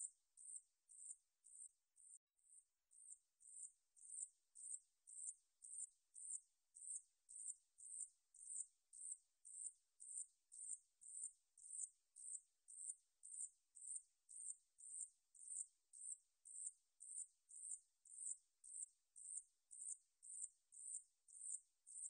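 Song of the san-yeochi (산여치), a Korean bush-cricket, a katydid: a steady series of short, high-pitched chirps, about two a second, each starting sharply and fading quickly.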